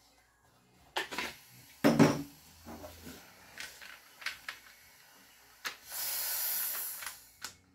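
Clicks and a loud clack as the action of an Umarex HDX 68 CO2-powered less-lethal shotgun is worked by hand. About six seconds in comes a steady hiss of a second or so: leftover CO2 venting as the gun is degassed.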